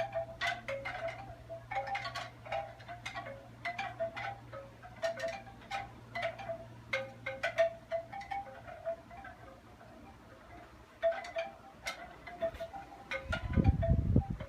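Wind chimes ringing in irregular clusters of strikes, each note ringing on, thinning out about two thirds of the way through before picking up again. A low rumbling noise comes in near the end.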